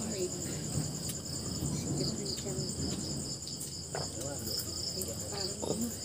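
Crickets chirping in a steady, high, rapid pulsing chorus, with faint low voices and a few light clicks underneath.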